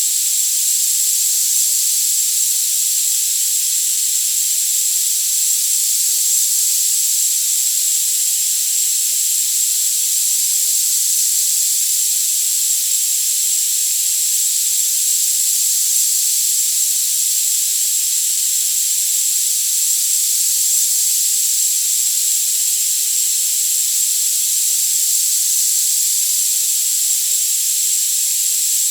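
Steady electronic hiss for tinnitus therapy, with all the low and middle sound filtered away, and a single steady, very high-pitched tone running through it, unchanging throughout.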